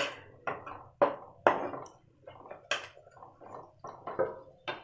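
A spatula scraping and knocking against a pan as cooked leafy greens are stirred: a string of short, uneven strokes, about two a second.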